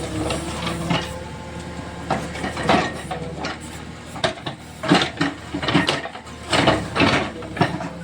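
Backhoe loader's diesel engine running steadily under a string of irregular knocks and clattering impacts, typical of the bucket striking and breaking into a wall, with debris falling.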